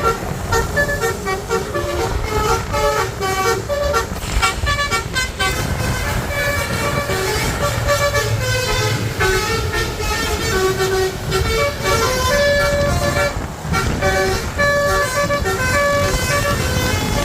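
Basuri telolet horn on a bus playing a long, continuous run of quick stepped notes as a melody, over a low engine rumble.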